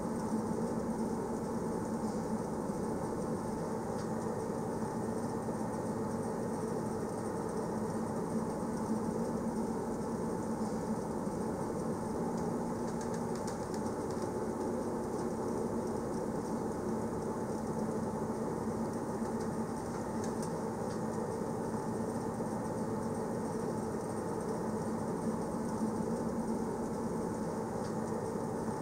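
Train running along the track: a steady rumble with a constant low hum.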